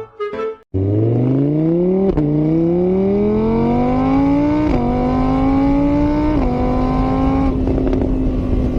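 Car engine accelerating through the gears: the pitch climbs, drops at each shift (about two, five and six and a half seconds in), then holds steady near the end.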